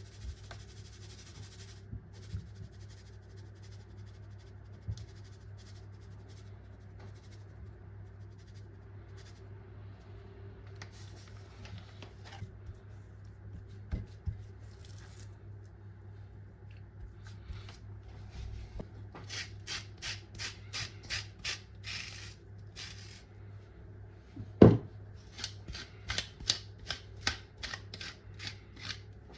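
Kitchen handling sounds: scattered light clicks and taps over a steady low hum, then a run of quick, crisp ticks several a second in the last third, with one loud knock among them.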